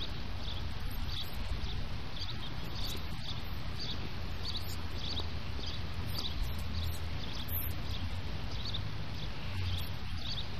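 Outdoor background: a steady low rumble, with a faint high chirp repeating about twice a second.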